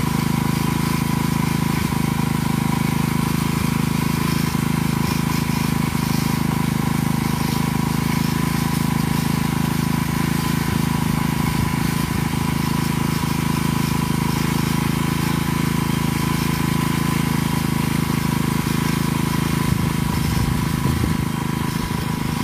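Small motorcycle engine idling steadily, its note holding even without revving.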